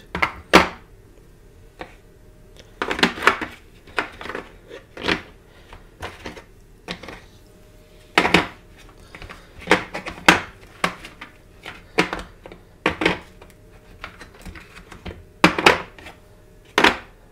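Steel screwdriver bits being slotted into and knocked against the moulded plastic tray of their storage case: a string of irregular sharp clicks and clacks, some coming in quick pairs.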